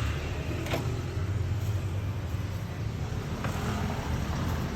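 A motor vehicle's engine running with a steady low rumble, with a couple of sharp clicks.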